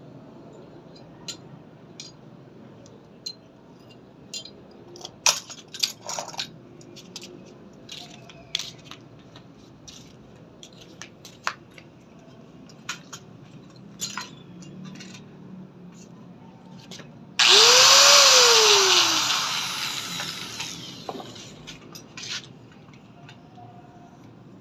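Scattered clicks and knocks, then about 17 seconds in a loud burst of a small electric motor that spins up and winds back down within a couple of seconds, with a hiss that fades out after it.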